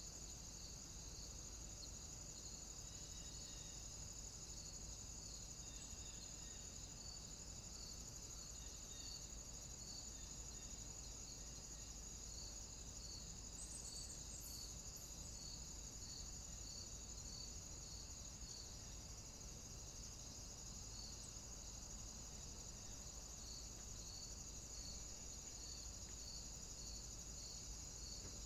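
Steady high-pitched hiss and whine of a trail camera's own electronics, with a faint regular pulse a little faster than once a second, over a low steady hum.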